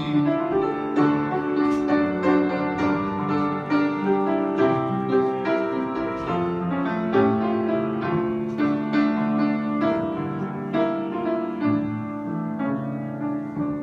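Instrumental interlude of a gospel hymn played on a keyboard, a steady flow of chords and melody notes with no singing.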